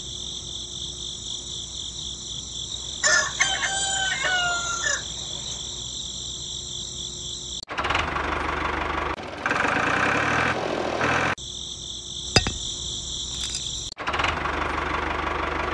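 A rooster crows once about three seconds in over a steady, high insect trill. From about eight seconds a small motor runs with a rough, noisy engine sound. The trill returns briefly, and the motor sound comes back near the end.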